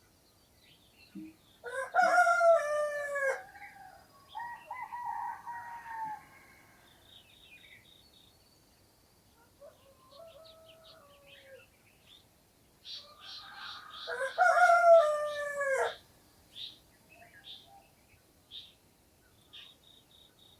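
A rooster crowing twice, each crow about two seconds long with a falling end, the first about two seconds in and the second near the middle. Small birds chirp now and then between the crows.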